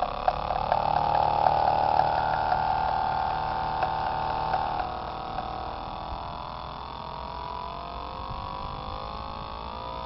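Portable radio picking up the square-wave drive of a 555 timer circuit powering an electromagnet, heard as a steady electronic tone rich in overtones. It weakens about halfway through, and in the second half its pitch rises as the oscillator's frequency knob is turned up toward its highest setting.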